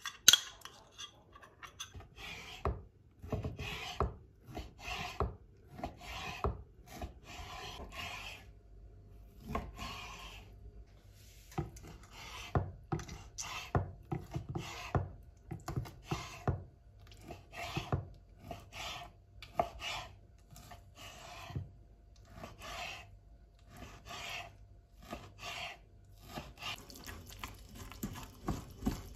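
A knife cutting raw chicken fillet on a wooden cutting board: a stroke every half second to a second, each ending in a knock of the blade on the wood. A sharp clink at the very start, and a spoon stirring the mix in a glass bowl near the end.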